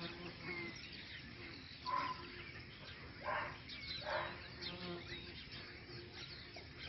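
An insect buzzes on and off close by, with birds chirping.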